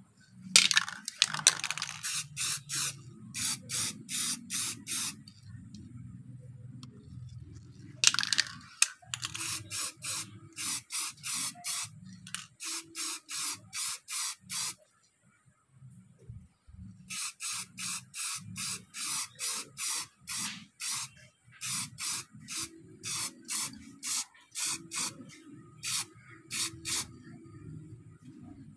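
Aerosol spray paint can hissing in short bursts, about two to three a second, in three runs with pauses between, as a black top coat is sprayed onto a bicycle crank arm.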